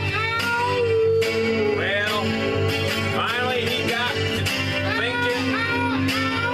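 Acoustic guitar strummed, with a voice singing along in long, sliding notes.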